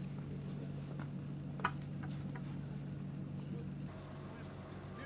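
A steady low engine hum, with a sharp metallic clank about a second and a half in.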